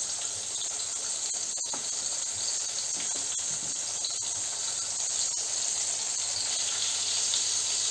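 Chickpea-flour-battered eggplant slices frying in hot oil in a frying pan: a steady sizzle with a few faint pops.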